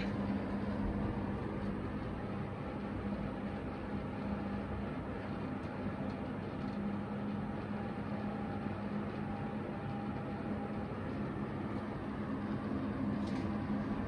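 Panasonic CS-C9PKP split air conditioner indoor unit running: a steady rush of air from its fan, with a low, even hum.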